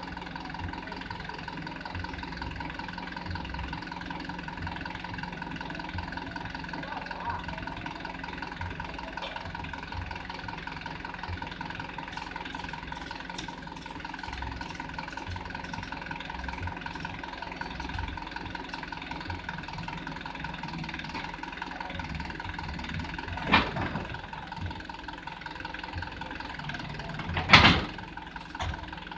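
Diesel engine running steadily at idle, with two short loud bursts of noise near the end, the second the louder.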